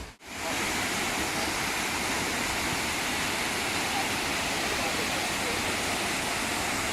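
Shiraito Falls: hundreds of thin streams of water falling down a curved cliff, heard as a steady, even rush that starts just after a sudden cut.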